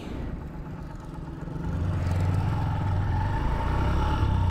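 Honda Dream 110's single-cylinder four-stroke engine running as the motorcycle is ridden, growing louder about a second and a half in and then holding steady.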